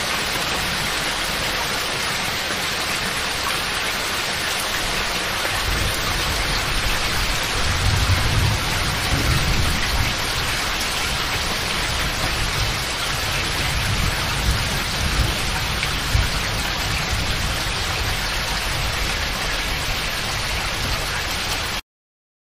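Heavy rain pouring steadily during a thunderstorm, with a low rumble swelling about eight seconds in and a few weaker ones later. The sound cuts off suddenly near the end.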